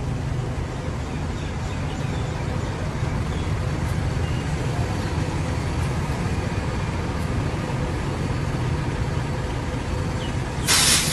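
Large diesel coaches driving past slowly, their engines giving a steady low rumble, with traffic noise around them. Near the end a loud burst of hiss lasts about half a second.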